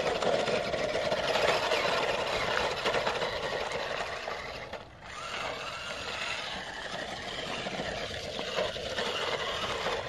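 Toy remote-control monster truck driving over grass and gravel, its electric motor and gearbox whirring steadily, easing off briefly about five seconds in.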